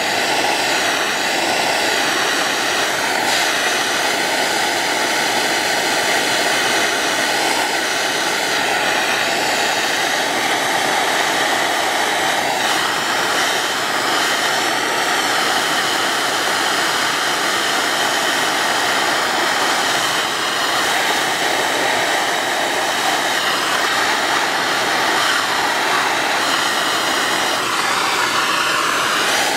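Propane torch flame burning with a steady hiss while it heats a copper pipe elbow to soldering temperature.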